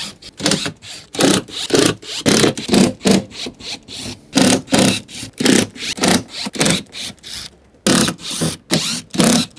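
Cordless drill-driver backing screws out of a wooden crate's fibreboard lid, whirring in rapid short bursts, two or three a second.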